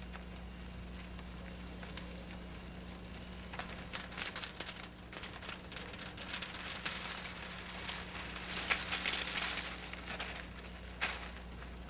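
Notched spring pole (a bent-over tree under tension) cracking and splintering as its wood fibers pull apart, a long run of crackles starting about four seconds in, with a few sharper cracks toward the end as it breaks and the tension releases.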